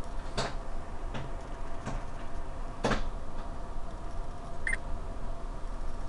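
Steady low hum inside an Amtrak passenger car, with a few sharp clicks and knocks, the loudest about three seconds in, and a brief high tone near the end.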